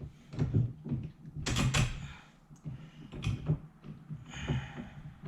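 Metal hardware being handled: a run of knocks, clinks and short rattles as 10-32 cap screws are fitted through an aluminium rack and its mounting brackets, with a longer rattle about one and a half seconds in and a brief scrape near the end.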